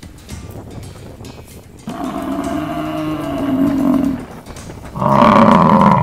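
Two low bellows from an African buffalo: a long drawn-out one, then about a second later a shorter, louder one.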